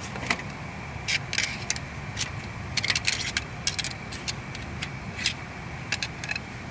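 Metal hand tools clinking and tapping: a scatter of short sharp clicks, densest in a cluster about three seconds in, over a steady low hum.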